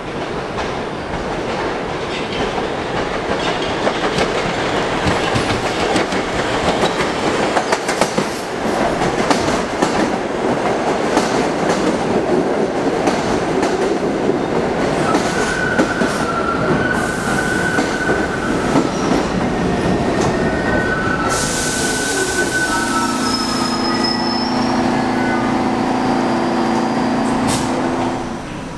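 New York City Subway train arriving and braking along a curved platform. Steady rumble and clatter of wheels on rail, with thin wheel squeals about halfway through and a motor whine falling in pitch. Then a burst of air hiss, and two steady humming tones as the train comes to a stand.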